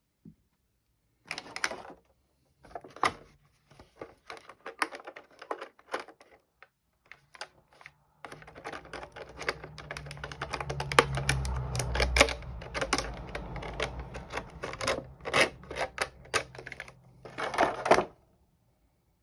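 Action-figure packaging being handled and opened: rapid, irregular clicks and crackles of plastic and cardboard. They come in short bursts at first, grow dense and continuous about halfway through, and stop shortly before the end.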